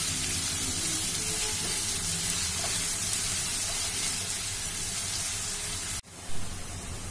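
Diced potato and carrot sizzling in hot oil in a nonstick kadhai while being stirred. The steady sizzle breaks off sharply about six seconds in, then goes on quieter, with a brief louder sound just after the break.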